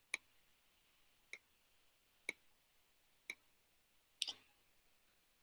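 Five short, sharp clicks about a second apart, over near silence.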